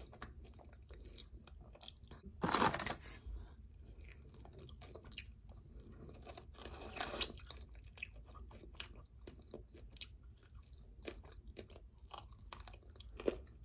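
Close-miked chewing and crunching of fried food, with scattered small mouth clicks and a few louder crunchy bites about two and a half seconds in, about seven seconds in and near the end.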